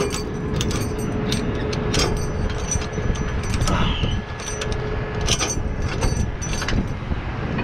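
Tow truck engine running steadily under a string of sharp, irregular metal clinks and clanks from the towing hookup gear. A thin steady whine runs through the first three seconds or so.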